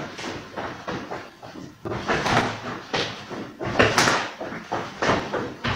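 Feet stomping and landing on a tiled floor in an irregular run of thuds and knocks, the loudest about four seconds in.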